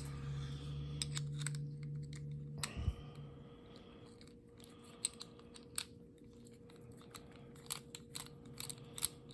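Small metallic clicks and taps from an old American padlock being handled and taken apart to get at its pin stack. A low steady hum runs for the first few seconds, and the clicks come scattered and more often in the second half.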